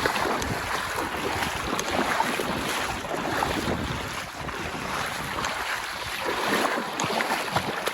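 Steady rushing noise of moving river water, with wind buffeting the microphone.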